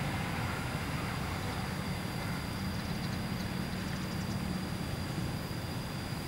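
Diesel-hauled train running in the distance: a low, steady rumble, with a steadier engine hum standing out through the middle.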